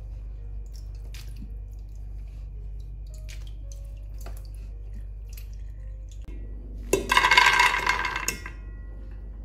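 Scattered water drips and small splashes as peanuts drain in a mesh strainer over a bowl of water. About seven seconds in, a loud clatter lasting about a second and a half as the peanuts are tipped from the strainer into a pressure cooker's metal inner pot.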